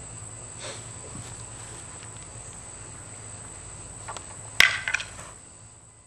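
Steady high-pitched insect chirring throughout, fading out near the end. About four and a half seconds in comes one sharp, loud clack, followed by a few quicker, smaller knocks.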